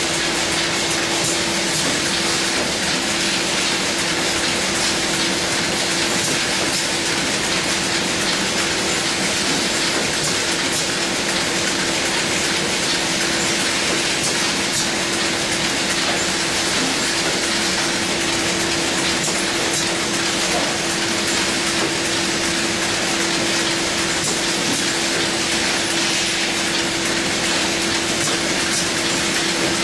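Automatic cartoning machine with a bottle turntable running continuously: a steady hiss with a constant hum beneath it and faint, irregular clicking from its mechanisms.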